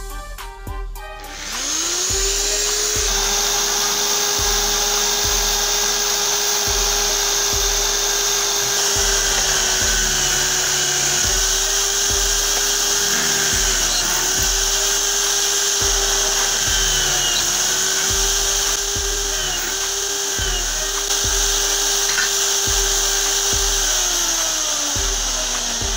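Electric drill mounted in a homemade drill press starting up about a second and a half in and running at speed, its pitch dipping briefly several times as the bit bites into a square metal tube, then winding down near the end. Background music with a steady beat plays underneath.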